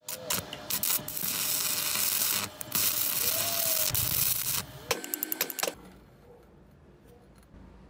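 Electric arc welding crackling and hissing as weld is laid into the pits of an old iron adze blade, in runs with short breaks about two and a half and five seconds in, a few choppy bursts, and the arc stopping a little before six seconds.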